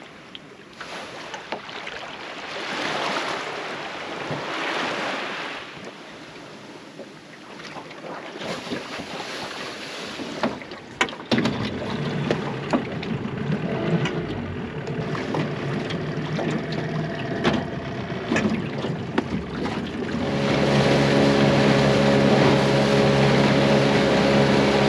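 Outboard motor of a small aluminium boat running under way, with wind and water rushing past. The engine's hum comes through plainly about halfway in and is louder and steady for the last few seconds.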